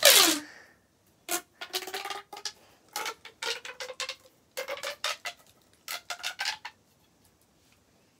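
Plastic fidget toys being handled: a pop tube's ribbed plastic zips with a falling pitch as it is pulled at the start, then comes a series of short clicking, rattling bursts, some with a buzzy tone, from the tubes and twisty snake being moved about.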